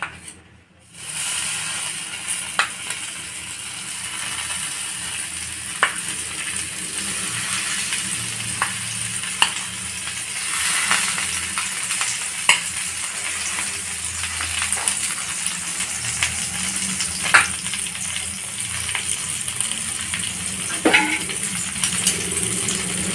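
Butter sizzling on a hot tawa as bread sandwiches fry in it: a steady frying hiss with scattered pops and crackles, starting suddenly about a second in.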